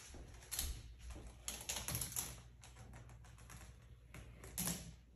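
A marble rolling and clattering down a plastic marble-run track: a rapid, irregular run of light clicks and rattles. Louder clacks come about half a second in, around two seconds in, and once more near the end.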